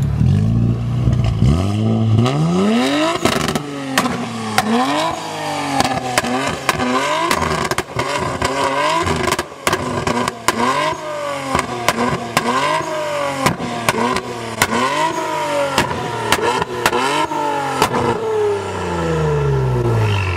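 Tuned Infiniti Q60's 3.0-litre twin-turbo V6 being blipped over and over, about once a second, through its exhaust, with sharp pops and crackles between revs from its flame-map tune. Near the end it falls back to a steady idle.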